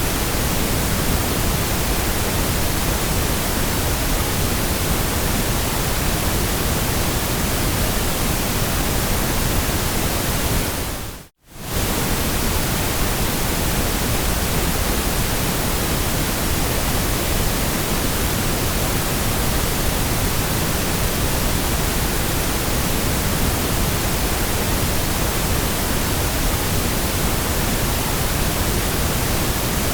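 Steady, even white noise hissing across all pitches. About eleven seconds in it fades out to near silence and comes straight back within half a second, as at the seam of a looped track.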